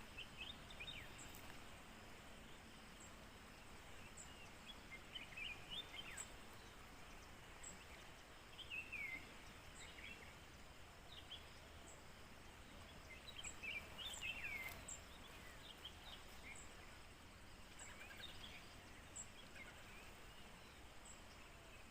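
Faint outdoor background hiss with scattered short bird chirps that drop in pitch, coming in clusters, and a faint high tick repeating about every second and a half.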